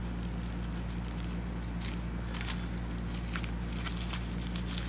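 Faint scattered snips and crinkles of scissors cutting through tightly wrapped bubble wrap, over a steady low hum.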